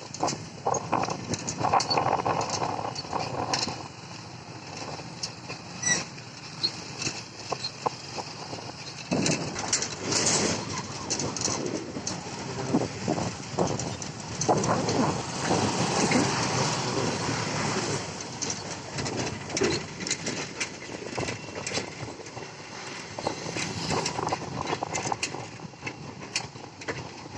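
Busy outdoor traffic noise of passing vehicles, with many scattered clicks and knocks. It grows louder and denser in the middle stretch.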